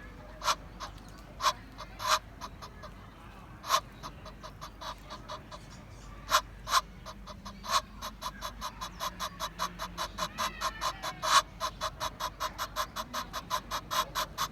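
Egyptian goose calling: a few single short, harsh honks spaced out, then from about halfway a rapid, even series of honks at about three a second.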